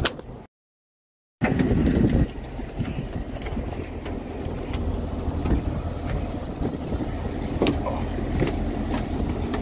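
Steady low rumble of a fishing boat under way, its engine and the wind on the microphone, with scattered clicks and knocks. About half a second in, the sound drops out for roughly a second, then returns with a louder burst of rumble.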